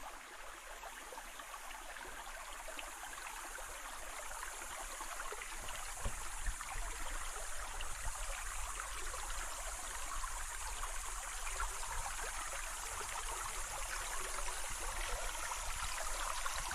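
Shallow stream running and trickling over small flat stones, a steady rush that grows gradually a little louder.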